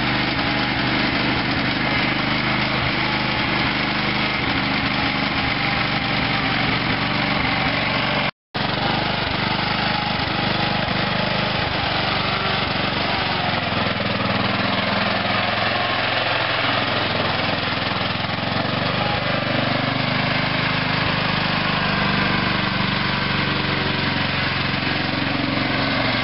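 Simplicity zero-turn riding mower's engine running steadily as the mower is driven, with a short dropout about eight seconds in. The engine has had a carburettor rebuild for fuel flooding into the cylinder, and the owner thinks it still doesn't sound quite as good as it should.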